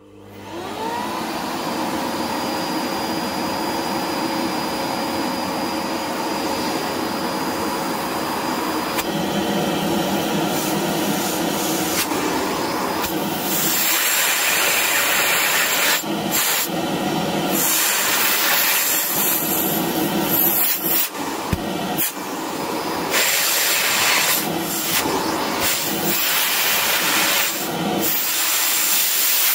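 An Electrolux Supercyclone 2100 W vacuum cleaner, its motor freshly overhauled, switched on straight at full power. The motor spins up with a rising whine in the first second, then runs with a steady rush of air. The rush grows louder and hissier about nine and thirteen seconds in, and in the second half it has repeated brief dips and surges.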